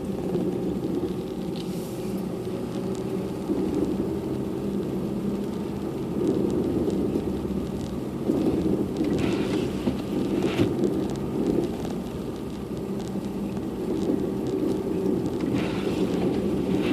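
A car driving on a snowy road: a steady engine hum with tyre and road noise, broken by a few short hissing sounds.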